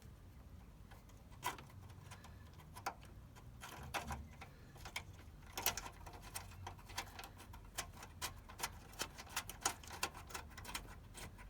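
Irregular light metallic clicks and taps from hand tools and fasteners as earth-wire terminals are bolted back onto the car's inner wing, growing busier in the second half.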